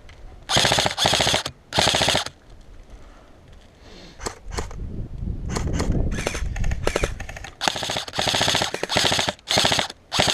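Airsoft rifles firing repeated short full-auto bursts, each a rapid clatter of shots lasting under a second.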